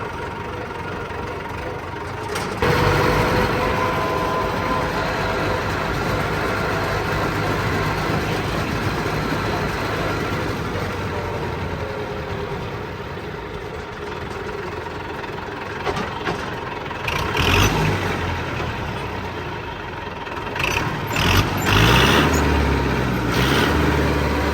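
Tractor engine running steadily on the road, getting louder about two and a half seconds in, with a few louder bursts near the end.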